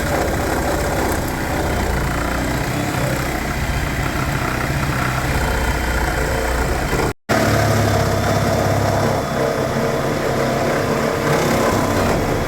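An engine running steadily. It cuts out for an instant a little past halfway, then carries on.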